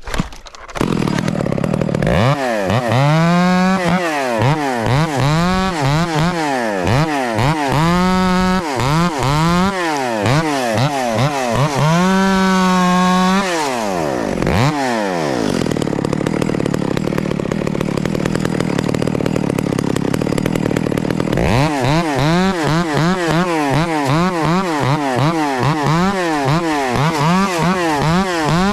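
Echo CS-670 two-stroke chainsaw revved up and down in quick bursts, two or three times a second, with short spells held at full throttle while limbing a tree. About halfway through it settles to a steadier, lower running for several seconds, then the rapid revving starts again.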